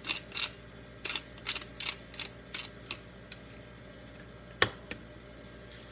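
Hand pepper mill being twisted, grinding peppercorns in short gritty rasps about three a second that thin out after about three seconds. A single sharp knock follows about a second later.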